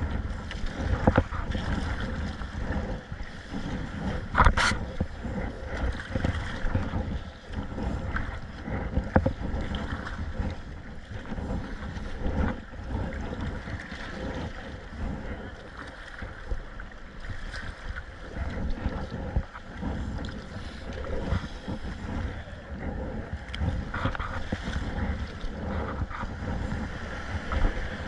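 Wind buffeting the microphone over water sloshing and splashing around a kayak in rough sea, with one sharp knock or splash about four and a half seconds in.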